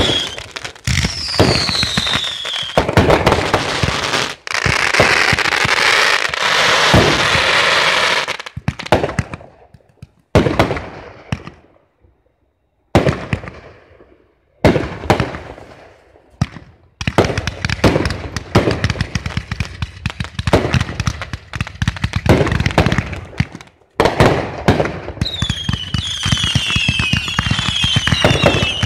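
Aerial fireworks finale: rapid volleys of shell bursts and crackling, with falling whistling tones near the start and again near the end. In the middle the barrage thins to a few scattered bangs with short gaps, then picks up again into a dense run of bursts.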